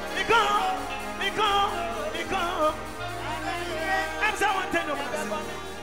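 Live gospel worship music from a band, with a man singing into a microphone over it, his voice wavering and bending in pitch in phrases about a second apart, over sustained bass notes that change a couple of times.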